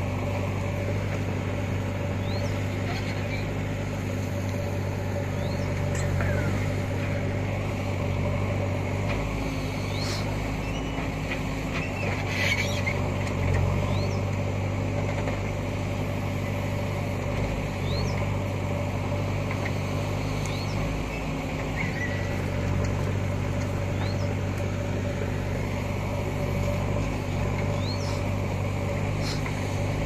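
JCB backhoe loader's diesel engine running steadily while the backhoe digs soil, with scattered short high chirps over the engine note.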